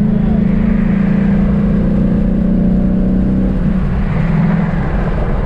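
Ford Mustang GT's 5.0 V8 running under way, heard from inside the cabin, with a steady engine note that drops to a lower pitch about three and a half seconds in.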